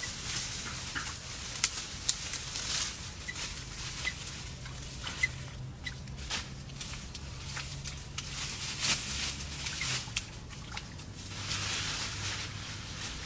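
Leafy branches being broken off bushes and handled: repeated sharp twig snaps and crackles with bursts of rustling leaves. A few faint short chirps sound in the background.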